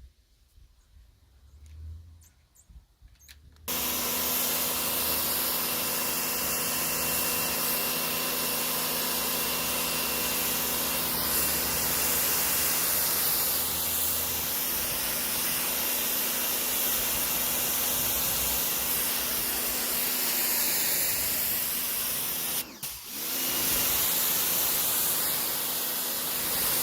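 Patoolio W8 electric pressure washer kicking on suddenly a few seconds in and running steadily: the motor and pump hum under the hiss of the high-pressure water spray. About twenty seconds later it cuts out for a moment and starts again.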